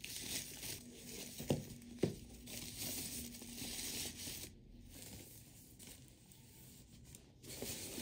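Crinkling and rustling of a thin plastic protective sheet being pulled back from a new monitor in its cardboard box, with two sharp knocks about a second and a half and two seconds in. The rustling dies down after about four and a half seconds and picks up again near the end.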